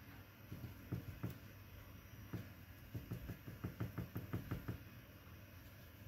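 Paintbrush tapping and dabbing in a watercolour palette while picking up and mixing paint: a few separate taps, then a quick run of taps at about six a second.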